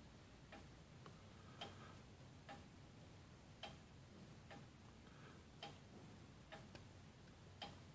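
Herschede Model 250 tubular grandfather clock ticking faintly, about one tick a second.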